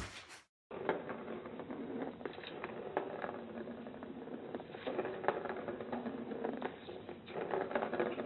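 Small plastic ball rolling and rattling around the plastic track of a cat's circular scratcher toy as a cat paws at it, giving irregular light clicks and taps.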